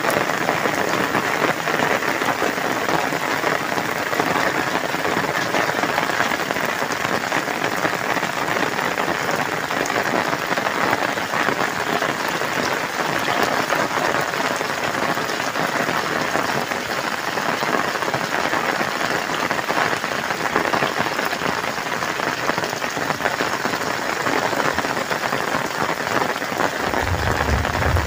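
Steady rain falling on soaked ground and standing water. A low rumble comes in near the end.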